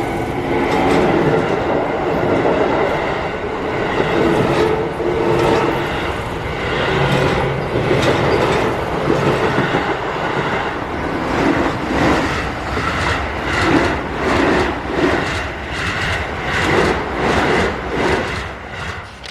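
Keio Line electric train passing over a railroad crossing, its wheels clattering over the rail joints in a regular clickety-clack that grows more distinct in the second half.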